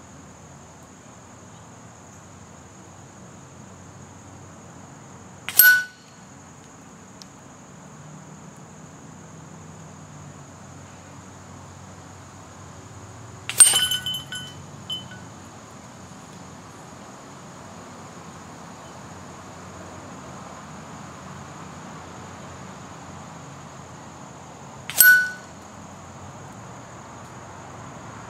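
Three air rifle pellet hits on a steel Air Venturi rat-on-a-stick target, spaced several seconds apart. Each is a sharp smack with a brief metallic ring; the middle hit is followed by a few small clinks. A steady high insect buzz runs underneath.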